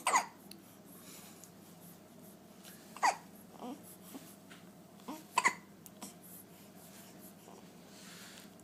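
A baby hiccuping: short, sharp hiccups every couple of seconds, with two in quick succession about five seconds in.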